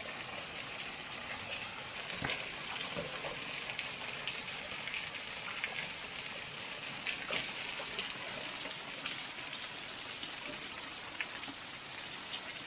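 Water from a small waterfall splashing steadily onto rocks, with scattered light drips and taps.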